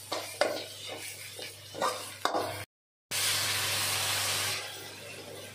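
Metal spatula scraping and stirring onion-tomato masala sizzling in a metal kadai. After a brief cut to silence, water is poured into the hot pan and hisses loudly for about a second and a half, then dies down to a quiet simmer.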